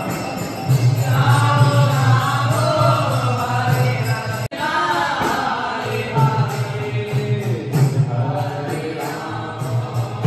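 Devotional kirtan: voices chanting a sung devotional melody over a steady low accompaniment, with a brief sharp break about four and a half seconds in.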